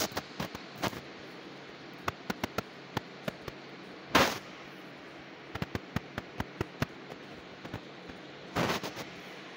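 A scattered series of sharp clicks and taps at no steady rhythm, with two short, louder noisy bursts, one about four seconds in and one near the end.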